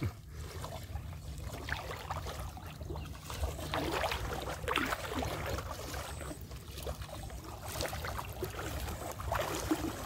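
Pond water sloshing and swishing around a person's legs as he wades through it, in irregular surges with each stride, over a steady low rumble.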